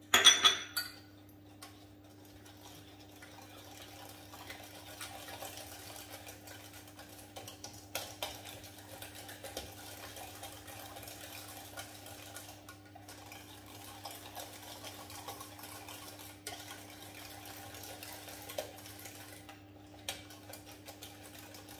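Wire whisk beating an egg, sugar and cornstarch mixture in a stainless-steel saucepan: continuous light scraping and rapid ticking of the wires against the metal, with a few louder clinks, after a short clatter at the very start. A steady low hum runs underneath.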